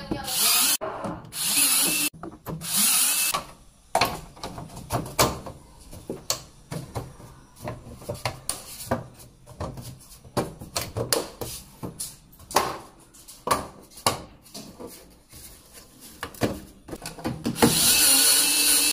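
Power screwdriver driving in the screws of a washing machine's back panel in several short runs, with many light knocks and clicks of the panel and screws in between, and a longer run near the end.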